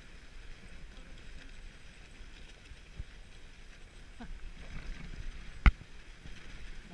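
Dog sled running along a packed snow trail behind its dog team: a steady rattle and hiss of the sled over the snow, with a single sharp knock about three-quarters of the way through.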